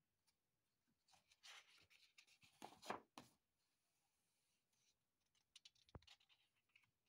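Faint rustle of a sketchbook page being turned by hand, a soft paper swish about one and a half to three seconds in, then a few light ticks and a small click near the end.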